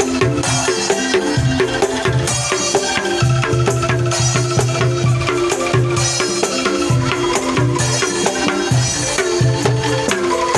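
Angklung ensemble playing a tune: shaken bamboo tubes rattling out quick pitched notes in a steady rhythm over a low repeating bass note.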